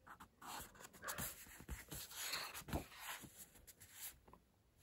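Paper rustling with soft clicks and scrapes as a page of a picture book is turned by hand, quieter near the end.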